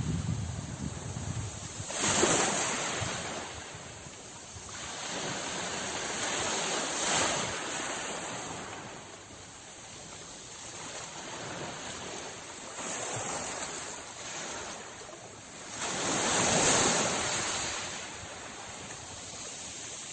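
Sea waves breaking and washing up a shore in slow surges, the loudest swells about two seconds in and again near the end.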